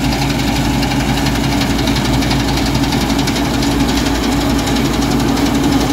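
Combine harvester running steadily while its belt pickup header lifts a windrow of grass seed crop: a constant engine drone with a fast, even clatter from the pickup over it.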